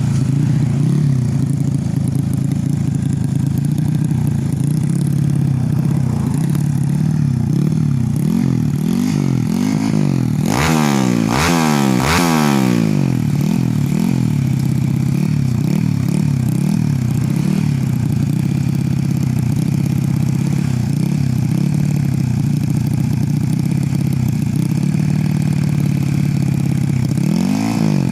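Motorcycle engine running steadily, revved up and down in a burst about ten to thirteen seconds in.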